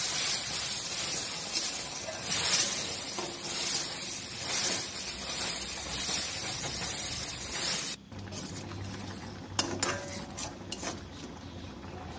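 Tomato paste sizzling in hot oil in a steel kadhai, stirred and scraped with a steel spatula. The sizzling cuts off abruptly about eight seconds in, leaving a few sharp spatula clicks against the pan.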